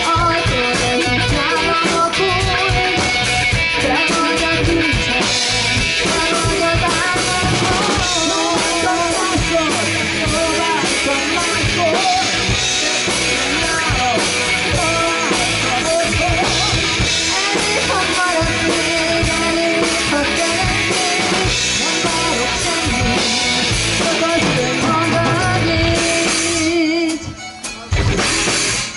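Live rock band playing an instrumental stretch of a song on drum kit, bass and guitar, with a wavering melodic lead line over it. The music drops out briefly about two seconds before the end.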